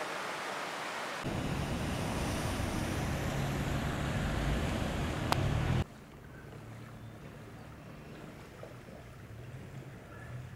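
Swollen, overflowing river rushing past, a steady wash of water noise, with wind buffeting the microphone from about a second in. It cuts off suddenly about six seconds in, leaving a much quieter low rumble.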